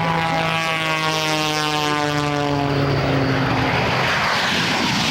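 Propeller engine of a Pitts aerobatic biplane running hard as it passes low, its drone falling steadily in pitch over about three seconds. A broad rushing roar takes over in the second half.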